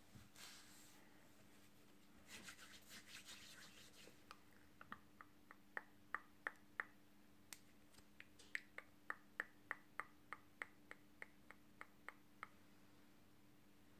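Finger snapping close to the microphone: a run of sharp, crisp snaps, about three a second, through the second half, after some soft rustling of rubbing hands near the start.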